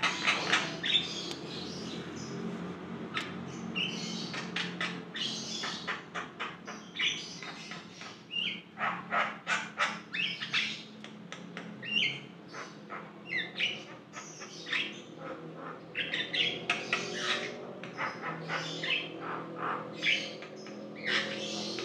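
Javan myna (jalak kebo) singing in full voice: a rapid, varied run of short clicking notes and whistled calls with brief pauses, over a low steady hum.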